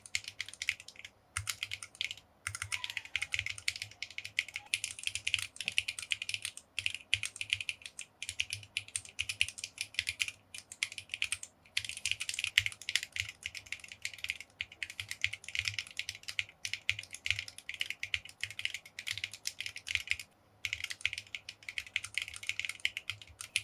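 Typing on a mechanical keyboard fitted with MT3, KSA and OSA profile plastic keycaps, a fast run of keystroke clacks with a few short pauses.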